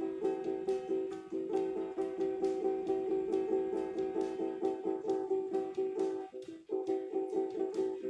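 Acoustic string instrument strummed in a steady, quick rhythm of chords, with a brief break about six and a half seconds in.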